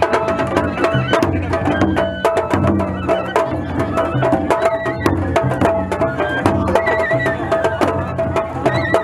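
Japanese festival music (matsuri-bayashi) from a float: a large taiko drum beaten with sticks in a steady rhythm, with many sharp, rapid clacking strikes and a high held-and-shifting melody line over it.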